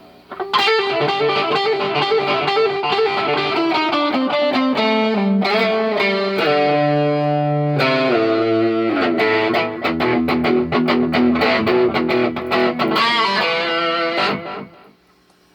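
Electric guitar played through distortion: a riff that starts with a run of notes stepping down in pitch, then moves into held notes and chords, and stops about a second before the end.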